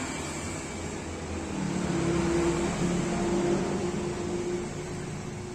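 A motor vehicle engine running with a steady hum that grows louder about one and a half seconds in, then fades again.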